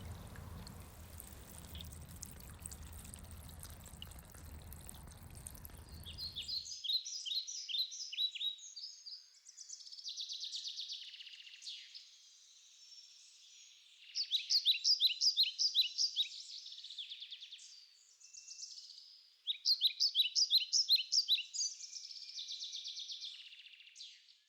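Solar fountain's spray splashing into a water-filled enamel bowl, which cuts off suddenly about six seconds in. A songbird then sings repeated series of rapid, high chirped trills.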